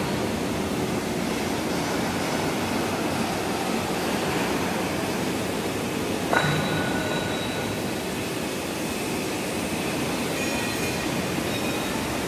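Steady hiss of background noise in a railway freight-wagon repair shed. About halfway through, a single metallic clink rings out, and faint high metallic rings come and go near the end.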